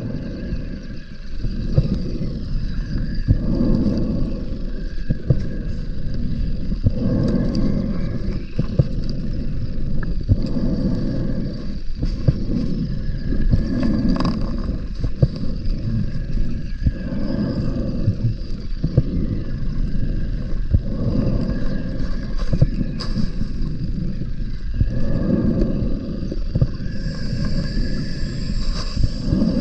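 Scuba diver breathing through a regulator underwater: hissing inhalations and rumbling exhaled bubbles, a breath every few seconds, with scattered clicks.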